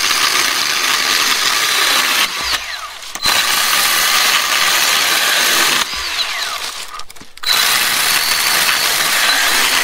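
Milwaukee M12 Fuel Hatchet 6-inch battery pruning saw with a brushless motor, its chain running and cutting through a small limb in three bursts with a high steady whine. In the two short pauses between bursts, the motor's whine falls as it coasts down.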